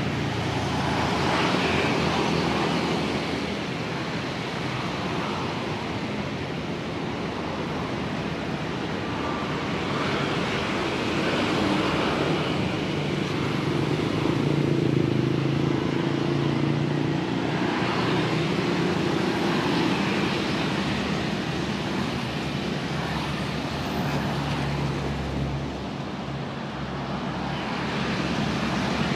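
Road traffic on a busy city street: a steady hum of engines and tyre noise, with vehicles passing in swells every few seconds.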